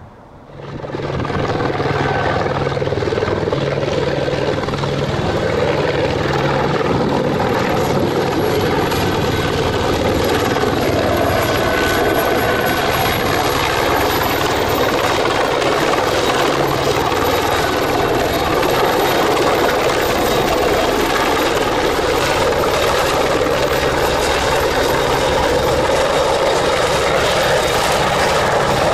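Airbus AS355F2 Ecureuil 2 twin-engine helicopter with two Allison C20F turboshafts, flying in and descending to land. The main rotor beats steadily and fast, and a thin high turbine whine runs over it. The sound comes up sharply about a second in.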